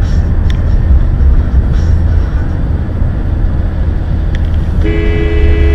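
Steady low rumble of road and engine noise inside a moving car. Near the end a car horn sounds a steady two-note blast for about two seconds.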